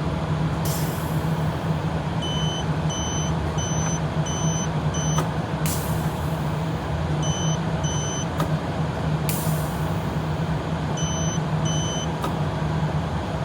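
Battery continuity tester giving short high beeps in irregular groups, each beep marking the reed switch closing its contacts. A steady low hum runs underneath throughout.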